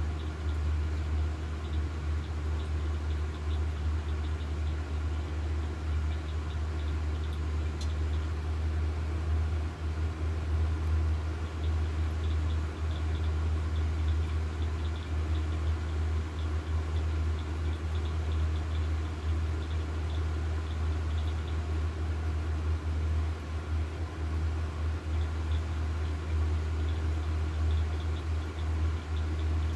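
A steady low machine hum that does not change, with faint rapid ticking higher up.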